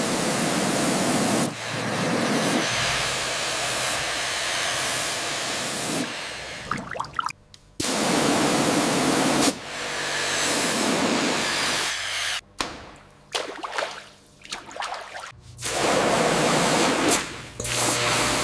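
Water spray hissing against rusted metal in long, steady blasts, broken by a short pause about seven seconds in and by a run of short spurts a little past the middle.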